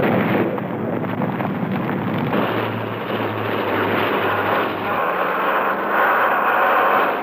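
Loud, steady vehicle engine noise on an old film soundtrack, with a low hum coming in for a couple of seconds in the middle.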